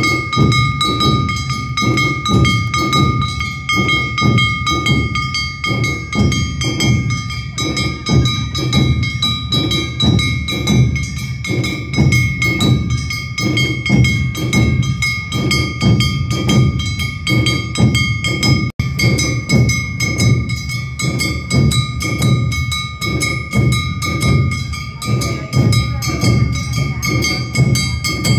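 Awa Odori festival band (narimono): big taiko drums beating a steady, driving rhythm of about two to three strokes a second, with a brass hand gong (kane) ringing continuously over them. A momentary break comes a little past two-thirds of the way through.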